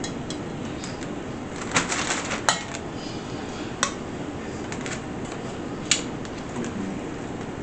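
Metal kitchen tongs clicking and clinking against a stainless steel mixing bowl as chicken pieces are picked out: a handful of sharp clicks a second or two apart, over a steady background hiss.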